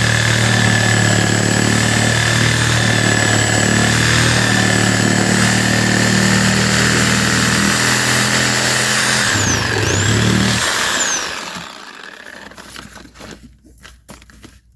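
A motor-driven machine runs steadily with a high whine, then winds down and stops about ten seconds in. A few faint knocks follow.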